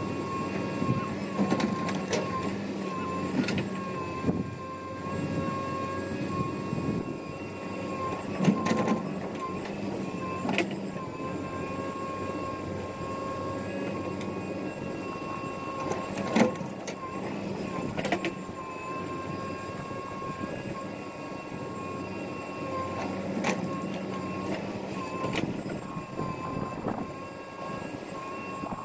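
JCB 3DX backhoe loader at work: the diesel engine runs with a steady high whine over it, its lower note swelling and fading now and then, and sharp metallic clanks and knocks come at irregular intervals every few seconds.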